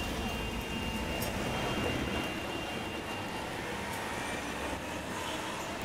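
Street traffic heard from inside a moving car: a steady rumble of engines and road noise, with a faint steady high whine that fades out about halfway through.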